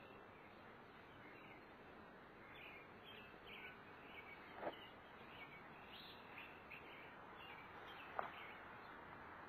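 Faint outdoor background with short high chirps repeating irregularly, about one or two a second. Two sharp clicks, about four and a half and eight seconds in, stand out as the loudest sounds.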